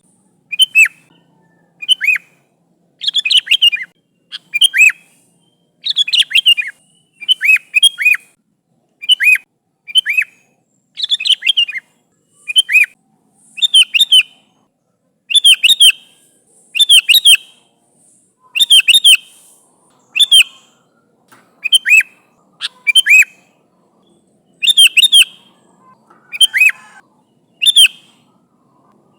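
Sooty-headed bulbul (kutilang) calling over and over, in short bursts of quick falling notes about once a second. It is a lively, full-voiced call to its companions, used as a lure to draw other bulbuls.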